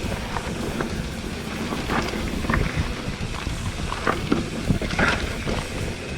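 Mountain bike ripping down a rough dirt trail: wind buffeting the microphone and tyre rumble, with frequent sharp clicks and rattles from the bike over bumps.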